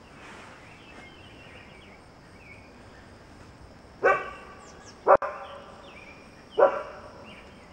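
A dog barks three times, the barks a second or so apart.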